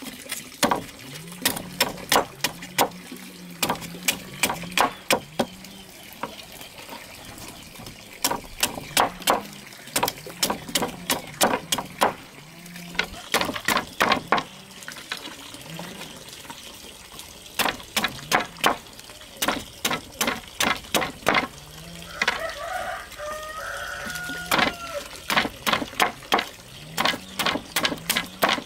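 Machete chopping bamboo into pointed stakes on a concrete slab: sharp strikes in quick runs of several, with short pauses between.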